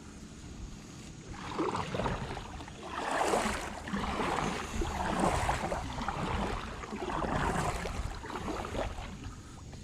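Kayak paddle strokes: the blades dip and swish through the water in a steady rhythm, roughly one stroke a second.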